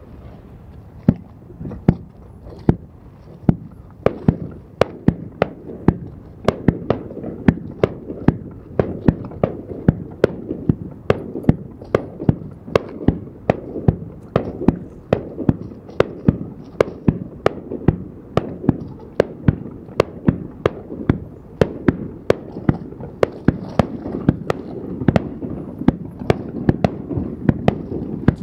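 Aerial firework shells bursting in quick succession: a steady run of sharp bangs, about two or three a second, over a continuous low rumble.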